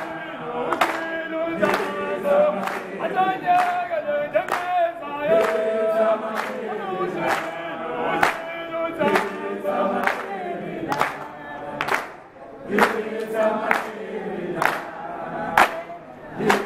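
A group of people singing together in chorus, clapping their hands in time about once a second. The singing drops off briefly about three-quarters of the way through, then starts again.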